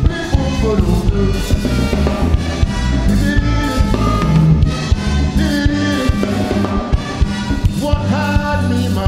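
Live calypso band playing an instrumental passage, with brass lines over a steady bass and drum groove.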